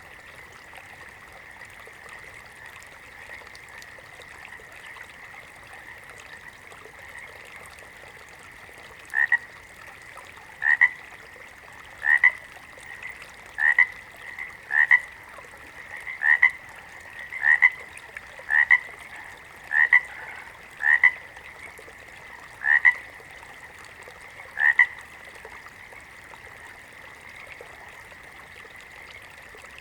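A frog croaking about a dozen times, short loud calls roughly once a second, starting about nine seconds in and stopping some five seconds before the end. A steady high hum runs underneath.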